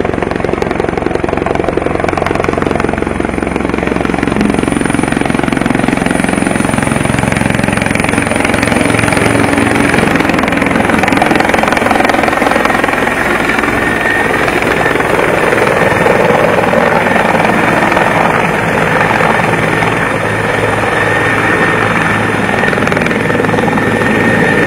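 Helicopter coming in to land close by: loud, steady rapid rotor chop with a thin high whine.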